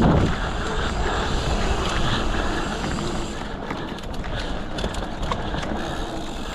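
Wind rushing over a GoPro's microphone as a mountain bike rolls down a dirt trail, with steady tyre noise and scattered sharp clicks and rattles from the bike, more of them in the second half.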